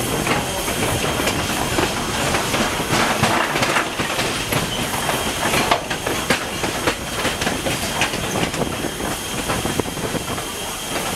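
A 1910-built 2-6-0 steam locomotive running along the line, close up, with wheels clattering irregularly over the rail joints and a hiss of steam beneath it.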